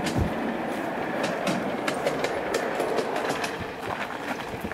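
Steel wheels of a miniature locomotive and car rolling along a raised steel track as they are pushed by hand: a steady rumble with many sharp clicks, and a low thump just after the start.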